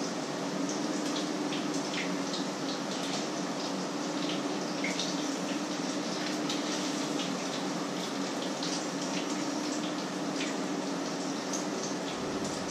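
A pot of water boiling on the stove under a steamer basket: a steady hiss with many small irregular pops and crackles, over a low steady hum.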